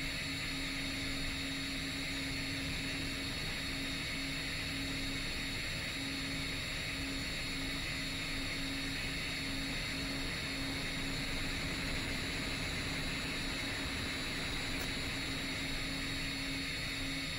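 Steady whir of a 10-inch FPV quadcopter's motors and propellers in cruising flight, a constant hum with a few high whining tones over a hiss.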